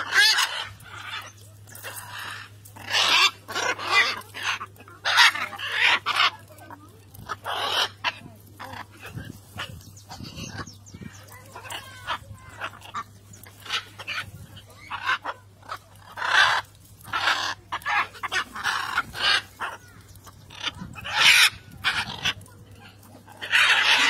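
A flock of blue-and-gold macaws squawking: loud, harsh calls at irregular intervals, each lasting under a second, over a faint steady low hum.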